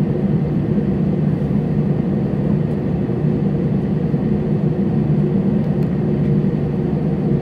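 Airliner cabin noise while the plane taxis: the jet engines and cabin air make a steady low rumble with an even hum.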